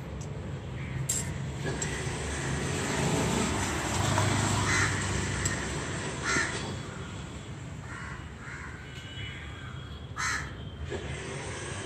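Crows cawing: a few separate caws several seconds apart, over a steady outdoor background.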